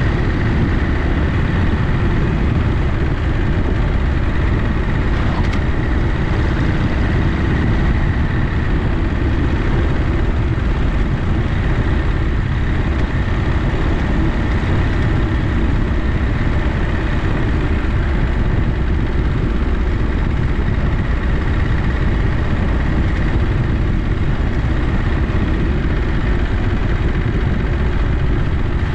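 1937 Matchless Model X's big V-twin sidevalve engine running steadily, a loud, even low rumble with no revving or gear changes.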